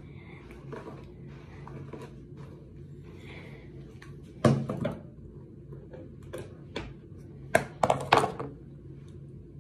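Hair being brushed, with rustling and handling noise over a steady low hum; a sharp knock about halfway through and a quick cluster of louder knocks near the end.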